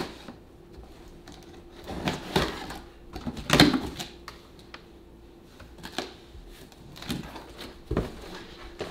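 Handling noises: irregular clicks, taps and short rustles, a few louder than the rest, over a faint steady hum.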